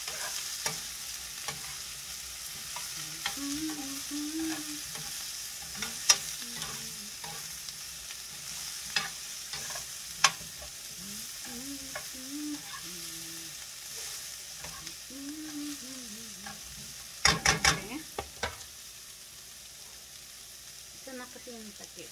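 Broccoli, cauliflower and carrots sizzling as they stir-fry in a pan, with a metal ladle scraping and clinking against the pan. A quick run of several sharp clinks comes about seventeen seconds in.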